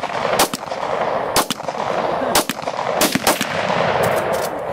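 A string of gunshots from a firearm being fired at the range: about six shots, mostly a second apart, with two in quick succession past the middle.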